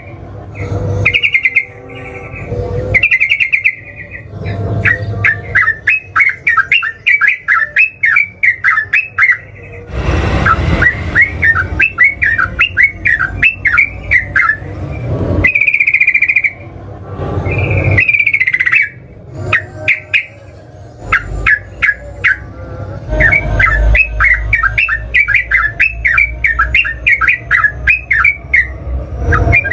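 Yellow-vented bulbul (trucukan) singing in long runs of quick, bubbly chattering notes, several a second, with a few held whistled notes between the runs. This is the sustained, rapid song bird keepers call ngeropel.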